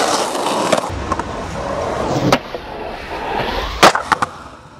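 Skateboard wheels rolling on concrete, with a loud, sharp clack of the board striking concrete about four seconds in, followed by a few lighter clicks.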